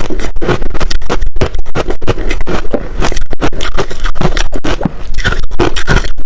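Close-miked crunching and chewing of ice, a rapid, continuous run of loud crunches several times a second.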